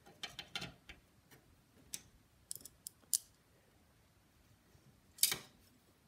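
Screwdriver working screws into a hard drive held in a sheet-metal drive cage: scattered small metallic clicks and ticks, with one louder noise near the end.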